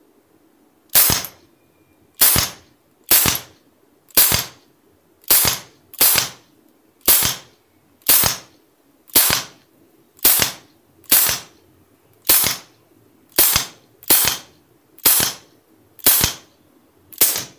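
Umarex Glock 19 CO2 BB pistol (.177) being fired in a steady string of about sixteen shots, roughly one a second. Each shot is a sharp pop that dies away quickly.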